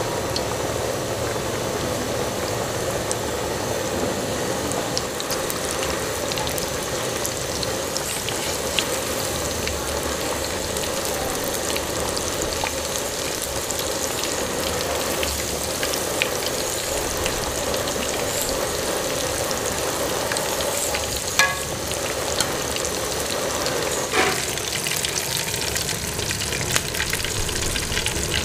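Flour-coated chicken thighs deep-frying in hot oil in an aluminium pot: a steady, dense sizzle and crackle. Two sharp taps stand out about three-quarters of the way through.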